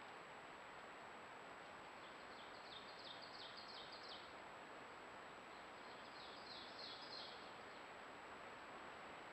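A small songbird sings two short phrases of quick repeated high notes, one about two seconds in and one about six seconds in. Beneath them runs a faint steady hiss with a thin high whine.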